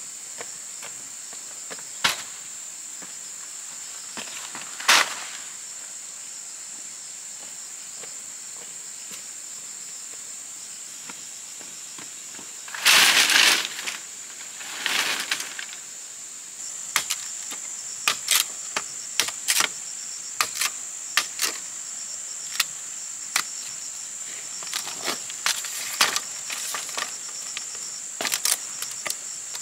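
Steady high-pitched drone of insects, broken by a few sharp knocks and then, from a little past halfway, an irregular run of quick sharp knocks: a machete striking bamboo laid over a log.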